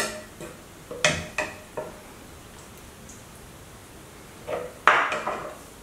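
Metal ladle clinking against a cooking pot and a ceramic plate while serving chowder: a few sharp knocks in the first two seconds, then a short cluster of clatter near the end.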